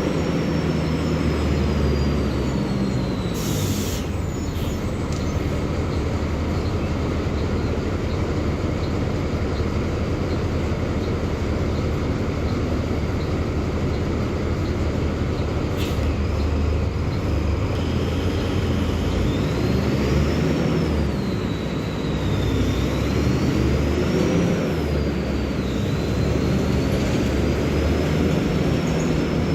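Mercedes-Benz OF-1724L bus diesel engine running under way with a steady low drone, and a high whine that rises and falls. Two short hisses of air come about three and a half and sixteen seconds in.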